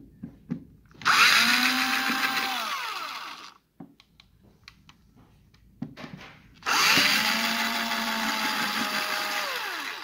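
Cordless drill with a screwdriver bit backing out faceplate screws. The motor whines up, runs steadily and winds down, twice, with small clicks between the two runs.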